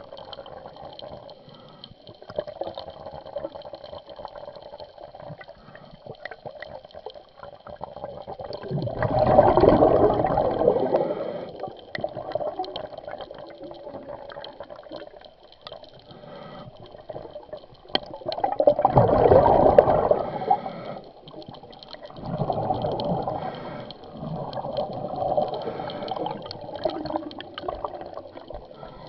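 A scuba diver's exhaled bubbles rushing out of the regulator, heard underwater: two loud bubble bursts about ten seconds apart, with weaker bubbling in between and afterwards.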